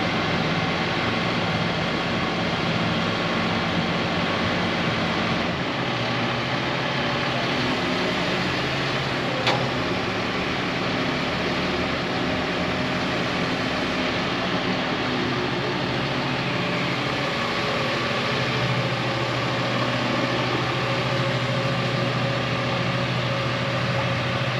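Truck crane's diesel engine running steadily while it holds a fiberglass pool shell on its slings, its note shifting slightly a few seconds in and again after the middle. A single sharp click about ten seconds in.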